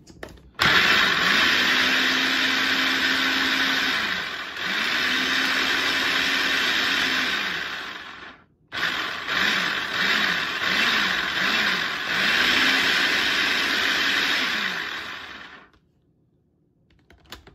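Food processor motor whirring as it purées tomato sauce, run in bursts, its pitch rising as each burst starts and falling as it is let go. There are two long runs, a brief full stop, a few quick pulses, then another long run that cuts off near the end.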